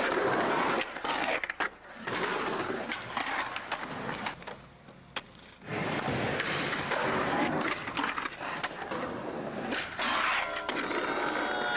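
Skateboard wheels rolling on pavement, broken by sharp clacks of the board popping and landing tricks, with two short quiet stretches where the rolling stops.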